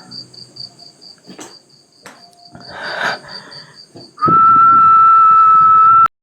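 Crickets chirping in an even high pulse, about five a second, with faint rustling noise. About four seconds in, a loud steady whistle-like tone starts, holds, then cuts off suddenly into dead silence.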